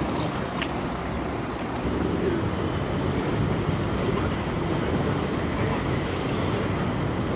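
Steady road traffic rumble, getting a little louder about two seconds in.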